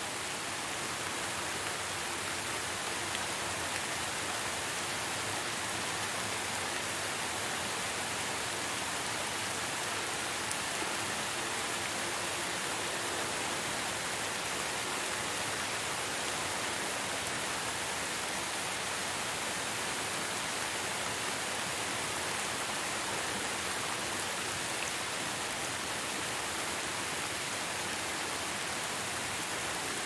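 Steady rain falling at night, an even hiss with no breaks.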